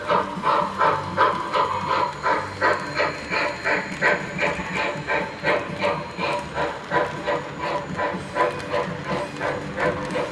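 Model steam locomotive's sound unit chuffing in a steady, even rhythm, with the low rumble of the train's wheels running on the track.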